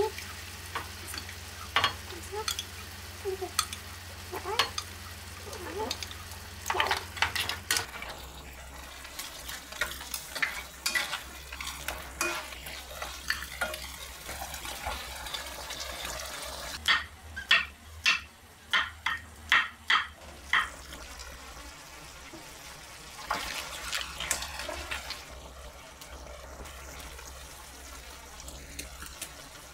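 Mussel and tomato pasta cooking in a frying pan: the sauce sizzles while a utensil stirs and clinks against the pan. A quick run of loud clicks falls just past the middle.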